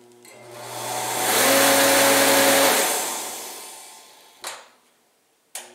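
A torpedo heater's combined fan and air-pump electric motor spins up with a rush of air and a steady whine, then winds down over a couple of seconds, with an electrical hum underneath. The motor is not starting and running properly, a fault the owner puts down to a blown start capacitor. A click comes near the end.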